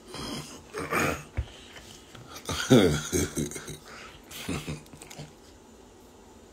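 A man's voice making a few short, wordless mumbling or grunting sounds. The loudest comes about three seconds in and falls in pitch.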